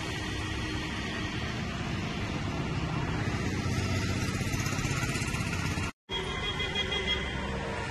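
Street traffic noise with a motor vehicle running past, swelling to its loudest about four seconds in; the sound drops out for an instant near the end.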